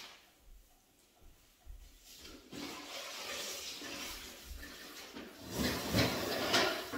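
Toilet flushing: a rush of water that starts about two seconds in and grows louder toward the end.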